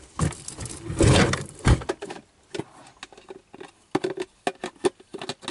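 Small plastic mini wheelie bins being handled close to the microphone: a loud rustling scrape in the first two seconds, then a run of light, sharp plastic clicks and taps.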